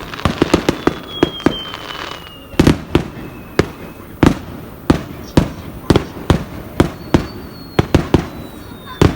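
Fireworks display: a rapid, irregular run of sharp bangs from bursting shells, about two or three a second, with thin high whistles that slide downward twice.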